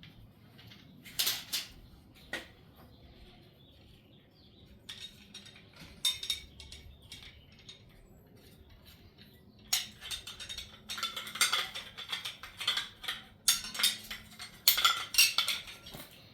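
Hard balloon-shelf segments clicking and clattering as they are handled and fitted together: a few knocks early, then a busier run of clacks over the last several seconds.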